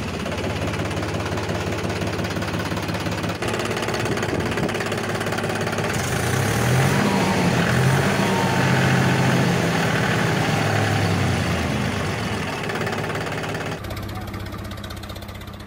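Engine running at idle with a steady chugging pulse. It gets louder and revs up slightly in the middle, then fades out near the end.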